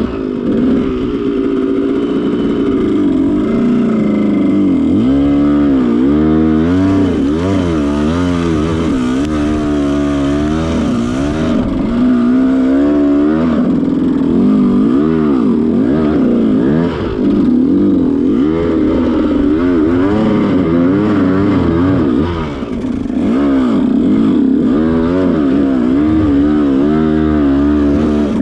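Dirt bike engine revving up and down again and again on a rocky trail climb, the throttle opened and closed about once a second.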